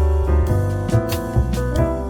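Background music: piano with a bass line and a steady beat.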